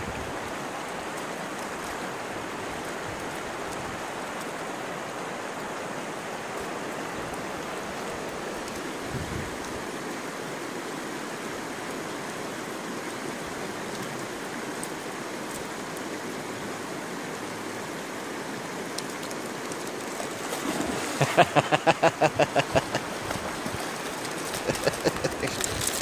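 Shallow river flowing steadily over stones. Near the end, a loud quick run of rhythmic sounds, about five a second for a couple of seconds, and a shorter run just after.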